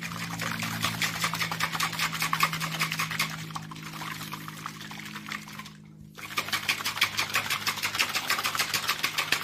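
Plastic protein shaker bottle shaken hard by hand, with water and protein powder sloshing and slapping inside in a fast, even rhythm while the powder dissolves. The shaking breaks off briefly about six seconds in, then starts again.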